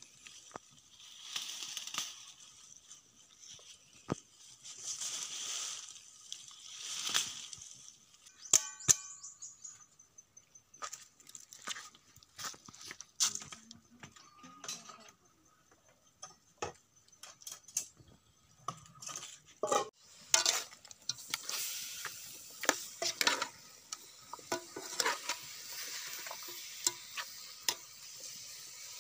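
Wild bitter gourd vines rustling in bursts every second or two as leaves are plucked by hand. Then a metal ladle clinks and scrapes in a metal pot of raw chicken pieces, with a sizzle building near the end as the chicken starts to sear.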